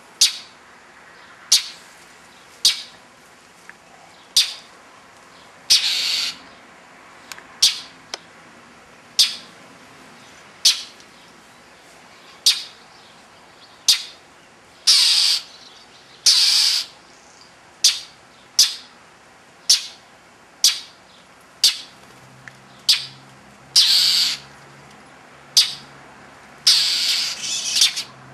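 Northern mockingbird giving short, harsh call notes over and over, about one a second, with five or so longer harsh calls mixed in: the bird is scolding a stalking cat.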